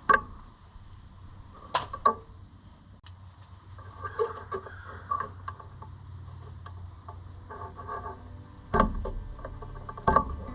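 Scattered clicks and knocks of hand work on electrical wiring and a plug-in outlet, with a few sharper knocks near the start, about two seconds in and near the end.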